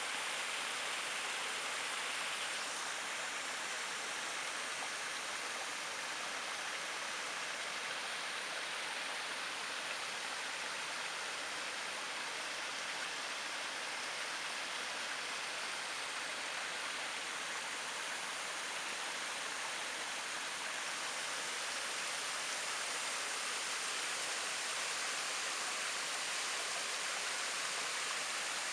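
Stream water rushing over stones, a steady, even hiss.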